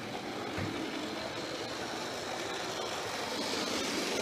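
Model railway locomotive running: its electric motor and wheels rumble steadily on the track, growing louder as the train approaches and comes out of the tunnel. There is one short knock about half a second in.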